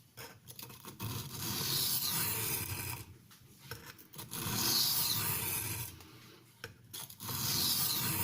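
Knife blade of CTS XHP steel stroked along a Norton India medium aluminium-oxide bench stone, a dry grinding rasp in three long strokes.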